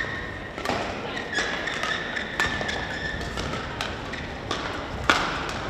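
Badminton rackets striking a shuttlecock in a doubles rally, a sharp hit about once a second. Between the hits, court shoes squeak on the court mat.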